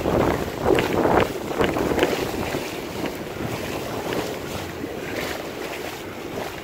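Surf washing and foaming in the shallows, with wind buffeting the microphone; the rush of water is loudest in surges over the first two seconds or so, then settles into a steadier wash.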